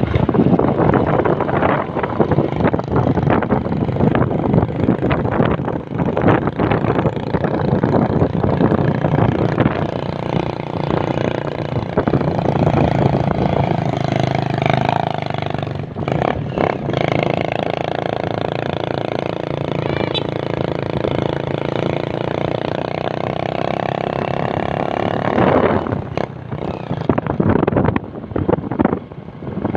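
Small fishing boat's engine running steadily underway, with wind buffeting the microphone. The engine drone steadies in the second half, with a brief dip about halfway through.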